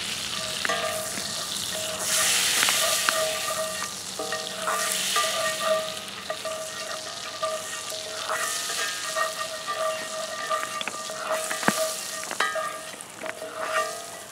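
Butter sizzling and frying in a hot cast iron skillet, the hiss swelling and falling as it is stirred and spread around with a wooden spatula, with occasional sharp clicks of the spatula against the pan.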